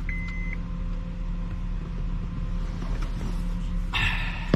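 One short, steady, high-pitched electronic beep at the start, over a steady low hum. Near the end comes a brief rustle and a sharp click.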